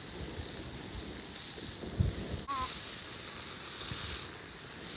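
Crawfish and crabs sizzling in a hot pan, a steady high hiss that breaks off briefly about halfway and swells again near the end.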